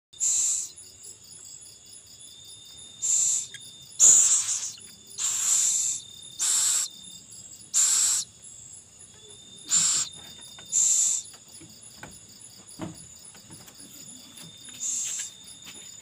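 Downy owl chick giving harsh, hissing begging calls: about nine loud half-second hisses at uneven intervals, with a gap before the last one near the end. A steady high-pitched chirring of crickets runs underneath.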